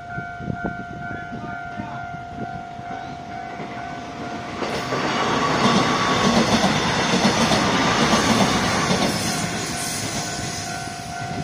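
Level-crossing warning signal sounding a steady electronic tone while a TRA EMU500 electric commuter train comes up. The train then passes through the crossing for about five seconds, its running noise drowning the signal. As the train leaves near the end, the warning tone is heard again.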